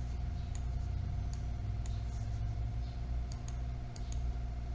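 Steady low electrical hum with a thin steady tone over it, and a few faint short clicks scattered through.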